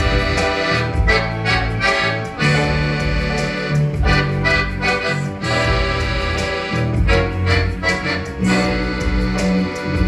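Piano accordion playing a melody of quick notes over held bass notes that change every second or so.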